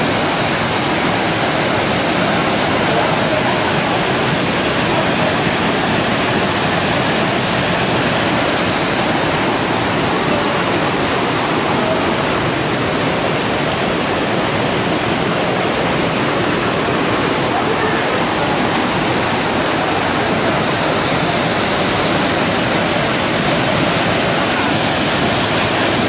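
Waterfall and cascading stream water rushing steadily, a loud, even noise with no breaks.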